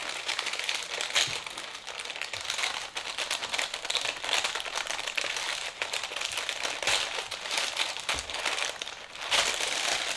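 Paper wrapping inside a beauty box crinkling and rustling as it is unfolded and pulled open by hand, with a short lull about nine seconds in.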